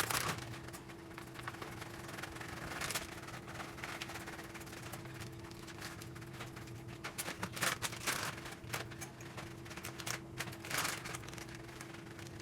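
Kitchen handling noises: scattered short scrapes and clicks over a steady low hum.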